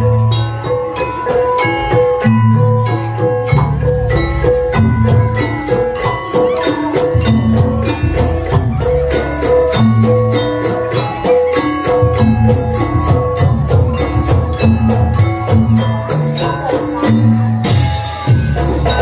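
Live Banyuwangi barong/jaranan gamelan music: drums, including a large barrel drum, beat a steady rhythm under ringing pitched metal percussion that strikes one note over and over, with other notes above it.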